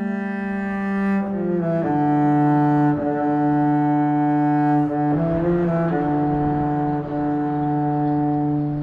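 Background music: a slow melody of long, held notes on low bowed strings, changing pitch a few times.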